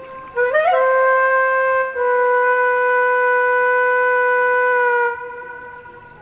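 A wind instrument sounding long, steady held notes with a horn-like tone. It starts with a short upward scoop about half a second in, shifts slightly near the two-second mark, holds again, and dies away a little past five seconds.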